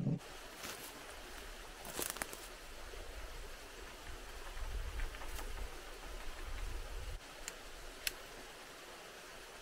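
Steady rush of a shallow forest stream, with a few sharp snaps and rustles of sapling branches being handled, a cluster about two seconds in and a single crack near the end. A low rumble comes and goes in the middle.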